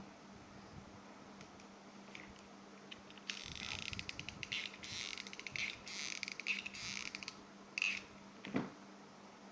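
Hot glue gun worked against quilled paper coils: rapid crackly clicking in several bursts for about four seconds, then a light knock near the end.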